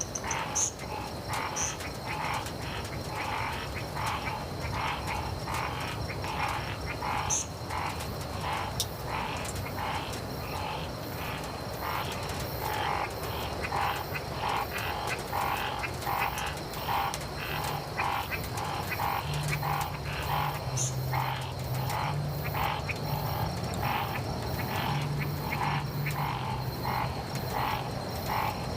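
Chorus of tree frogs calling, short repeated calls overlapping at about two a second, over a steady high-pitched drone. A lower droning note comes and goes in the second half.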